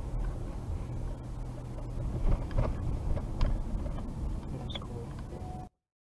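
Steady low rumble of road and engine noise inside a moving car, picked up by a dash cam, with scattered light knocks and rattles. It cuts off abruptly near the end.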